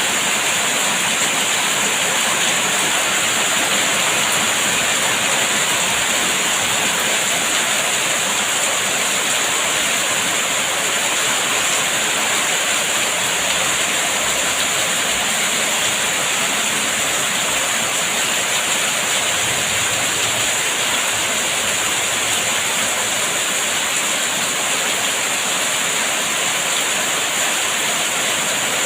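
Steady rain falling, an unbroken even hiss that does not change.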